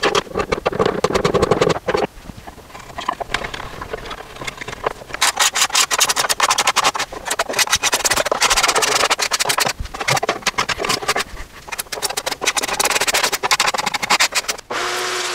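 A hand tool scraping and rubbing against the plywood inside a cajon, in runs of quick scratchy strokes and clicks with short pauses between them. Near the end a steady hum starts suddenly.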